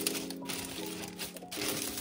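Soft instrumental background music with held chords, with plastic packaging crinkling and rustling over it as it is handled.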